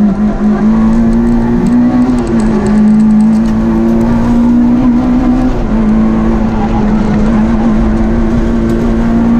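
Rally car engine running hard, heard from inside the cockpit. The pitch holds nearly steady at high revs, with brief small dips about two and five and a half seconds in.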